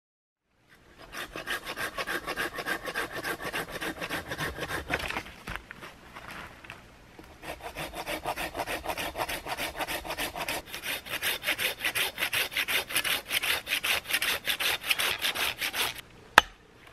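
Hand pull saw (a Japanese-style pruning saw) cutting dead pine in fast, even back-and-forth strokes, pausing for a second or so about five seconds in before the sawing resumes. A single sharp click near the end.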